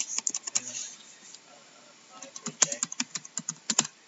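Typing on a computer keyboard: a quick run of key clicks at the start, a pause, then a faster run of keystrokes in the second half.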